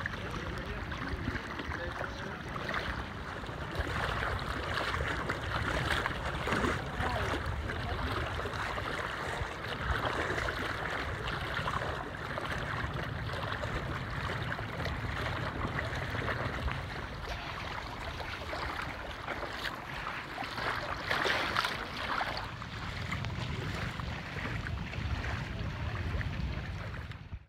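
Steady sea-water noise with low wind rumble on the microphone. It cuts off suddenly at the end.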